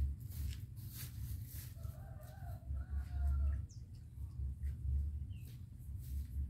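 A chicken clucking, a short run of calls about two seconds in, over a steady low hum.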